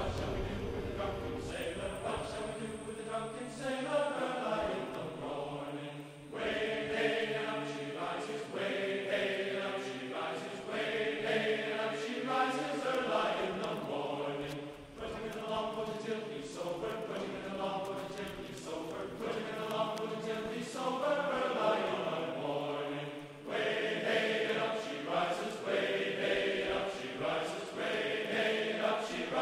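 Background music: a vocal piece with chant-like sung phrases.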